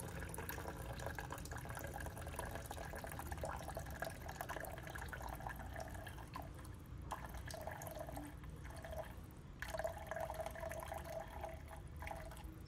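Liquid being poured into a tall plastic cup, a faint steady trickle that briefly stops twice.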